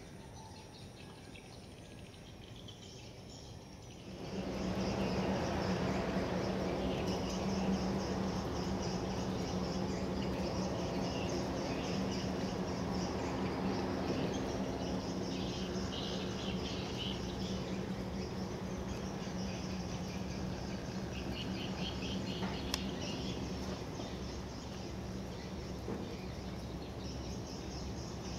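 Riverside ambience: a steady low drone from a passing cargo ship, under continual high chirping of birds and insects. The whole grows louder about four seconds in.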